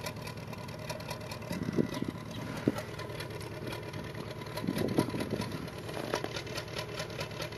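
2006 Subaru Forester's flat-four engine idling steadily on a cold-start high idle, running a little rough; the owner suspects a misfire on cylinder 3.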